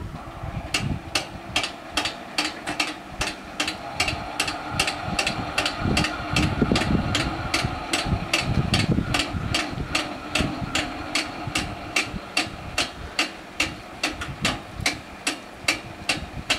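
Electric level-crossing bells striking quickly and evenly, about three strokes a second, starting just under a second in, as the crossing barriers lift to reopen the road after the train has passed. A steady hum runs underneath.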